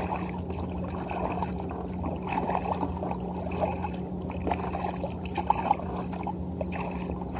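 Small waves lapping and trickling against a kayak's plastic hull, with a steady low hum underneath.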